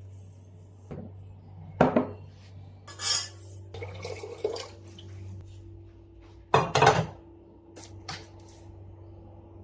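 Dishes and utensils clattering: several separate knocks and clinks, the loudest about seven seconds in, over a low steady hum.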